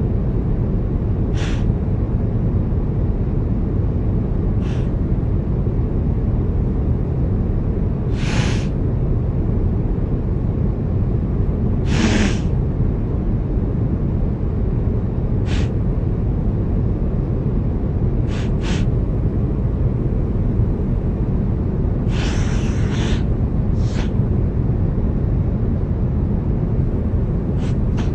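Steady low drone of an aircraft cabin, with a sick man sniffling about a dozen times. The sniffs are short and sharp, a few seconds apart, with a longer, drawn-out one about two-thirds of the way through and a quick cluster near the end.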